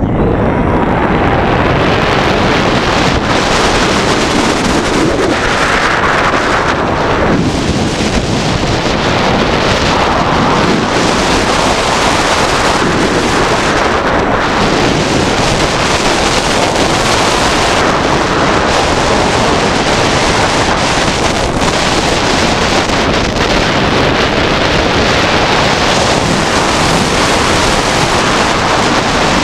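Heavy wind noise buffeting the microphone on the front seat of a Bolliger & Mabillard giga coaster. It rises sharply as the train tips over the crest into its first drop, then stays loud as the train runs the course at speed.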